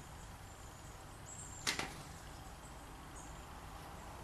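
A cloth wiping the underside of an engine oil pan: faint rubbing with a high squeak, and one sharp knock about a second and a half in.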